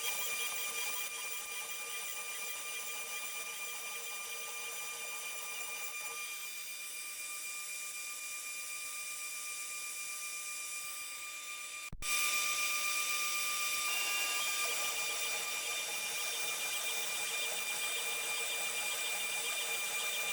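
CNC router spindle whining steadily at high speed while milling a beech workpiece, with a hiss from the cut. The sound breaks off for an instant about twelve seconds in and comes back louder.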